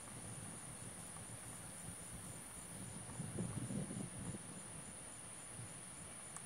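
Insects trilling: a steady high-pitched buzz, with a fainter chirp repeating at an even pace beneath it. A soft low rustle comes about three seconds in.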